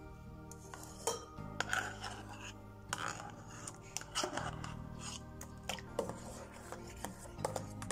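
A utensil clicking and scraping irregularly against a stainless steel bowl as a thick, gooey gel mixture is stirred by hand. Soft background music with sustained chords plays throughout.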